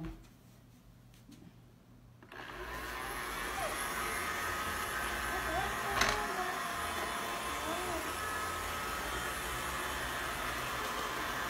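Small budget robot vacuum running steadily, starting about two seconds in. About six seconds in there is a single knock as it bumps into a furniture leg.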